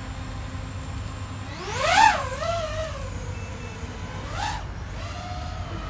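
DJI FPV drone's motors and propellers spinning at a low idle, then whining sharply up in pitch about two seconds in as it throttles up to take off, before settling to a steady, lower whine. A short rise in pitch follows a couple of seconds later.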